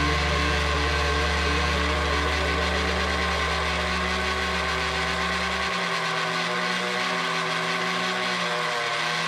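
Electric motor of a Lionel operating coal accessory running steadily with a buzzing drone. A deep hum underneath cuts off almost six seconds in, leaving the higher drone running.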